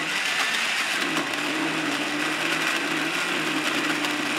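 Countertop jug blender running at a steady speed, its motor humming at an even pitch, as it churns chopped onion, tomatoes, chilies and water into a liquid paste.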